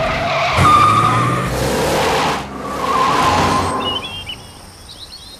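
A box van's tyres skidding and squealing in two long bursts. Birds chirp near the end.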